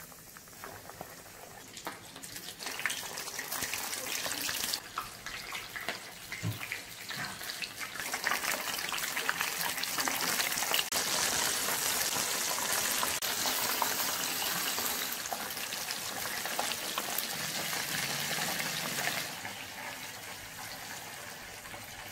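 Hot oil sizzling and crackling as flour-coated chicken pieces deep-fry in a pan. The crackle grows louder about five seconds in and eases off near the end.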